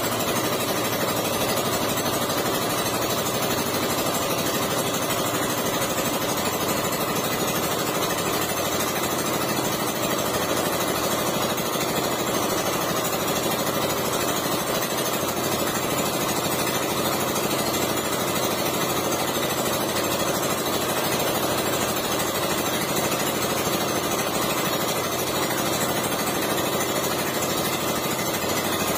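A small engine running steadily at an unchanging speed, with an even, rattling mechanical chatter.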